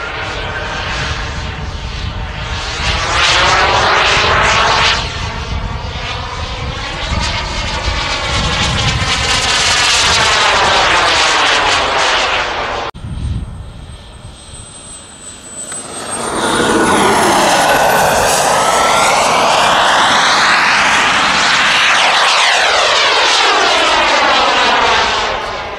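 Turbine engines of radio-controlled model jets flying past, loud and swelling and fading as each one passes. The sound breaks off abruptly about halfway through, and after a quieter moment another long, loud pass follows with a thin high whine gliding upward.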